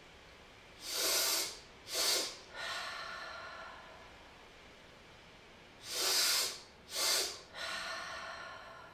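Two rounds of cyclic sighing (the physiological sigh): each is two quick, sharp inhales through the nose, the second a shorter top-up, followed by a longer, softer exhale that fades out.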